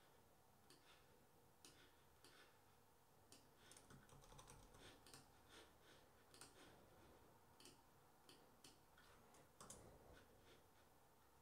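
Faint typing on a computer keyboard: irregular key clicks, busiest in the middle.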